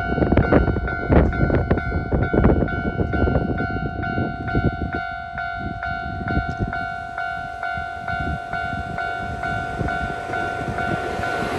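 Level-crossing alarm ringing steadily at about two to three strikes a second, while a Nankai 6000-series stainless-steel electric train runs past, its wheels clacking over rail joints. The train noise is loudest in the first few seconds, then eases off as it moves away; the bell keeps ringing.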